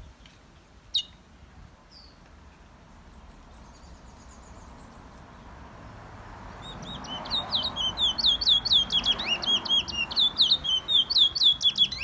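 Caged black songbird singing a fast, loud run of chirps and whistles from about halfway in, several notes a second, as it spreads itself in display. A single sharp click comes about a second in.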